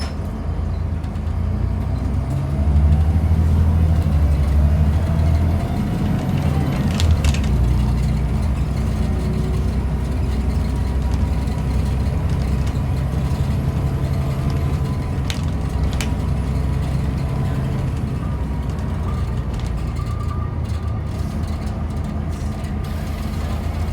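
Volvo B7TL double-decker bus's engine and drivetrain running under way, a deep rumble that swells about three seconds in and holds, with faint whines gliding up and down. A few sharp metallic clicks come about seven and sixteen seconds in.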